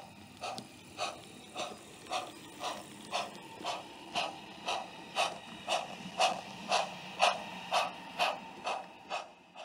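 A passing model steam train: a steady rhythmic beat of about two strokes a second that grows louder, peaks about seven seconds in, then fades and stops just before the end.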